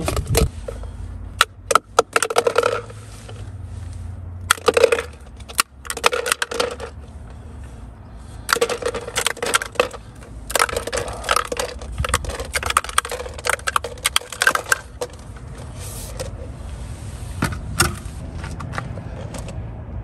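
Freshly made ice cubes from a portable fridge's built-in ice maker clattering and rattling against a plastic container in repeated bursts of clicks, over a low steady hum.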